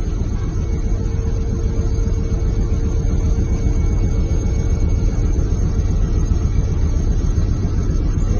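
Helicopter cabin noise in flight: a loud, steady low rumble of the engines and rotor, with a faint steady tone above it.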